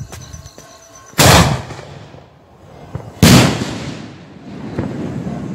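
Aerial firework shells bursting: two loud bangs about two seconds apart, each followed by a rumbling echo that dies away over about a second.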